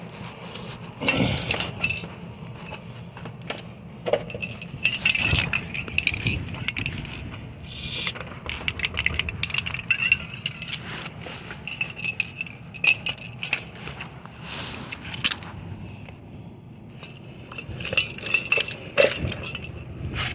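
Small metal locksmith tools and keys handled, with irregular clinks, jingles and scrapes.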